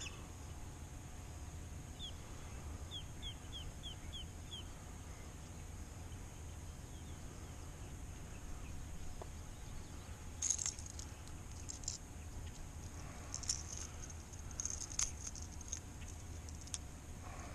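A bird gives a quick run of about six short, falling chirps. Then, about ten and again about thirteen to fifteen seconds in, comes light metallic jingling and clinking, the loudest sound here, over a steady low rumble.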